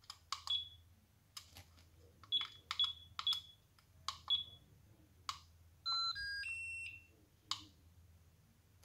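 Buttons on a SkyRC iMAX B6 mini LiPo balance charger clicking, most presses answered by a short high beep from the charger, as it is set to LiPo storage mode. About six seconds in the charger plays a short three-note electronic tune, lasting about a second.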